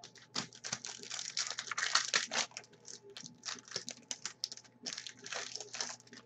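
Football trading cards being flipped and sorted in the hands: a quick run of crisp clicks and rustles, thickest in the first two and a half seconds and again about five seconds in.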